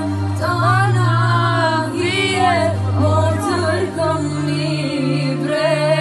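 A woman singing a traditional Albanian henna-night (kanagjeq) song, her melody sliding and ornamented, over a low held drone that shifts to a new pitch a few times.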